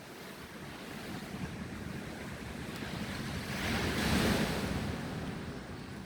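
Ocean surf: a wave rushes in, building to a peak about four seconds in and then fading, with some wind on the microphone.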